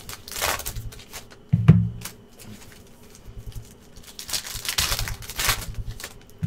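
Rustling and scraping of a sealed trading-card box and its wrapping being worked open, with one thump about a second and a half in, over background music with a low beat.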